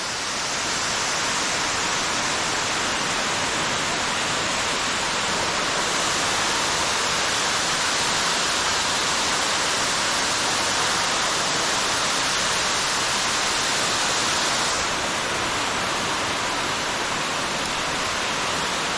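Underground waterfall pouring down a deep cave pit: a steady, even rush of falling water, its hiss easing slightly about fifteen seconds in.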